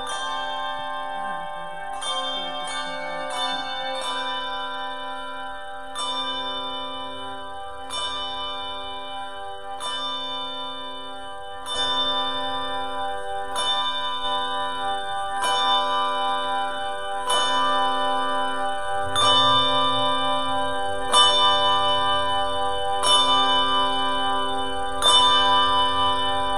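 Handbell choir ringing a slow piece: brass handbell chords struck about every two seconds and left to ring, with a quicker run of strikes a few seconds in. The playing grows louder in the second half.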